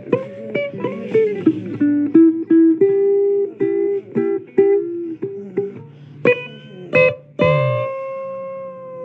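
Blues guitar solo: a quick run of picked single notes with string bends, then two sharp stabs and a long note left ringing near the end.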